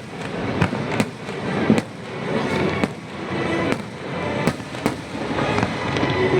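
Fireworks going off: repeated sharp bangs, one or two a second, over a continuous crackle of bursting shells.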